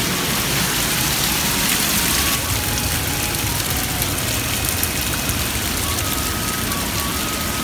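Steady rushing noise, with faint thin whistling tones now and then.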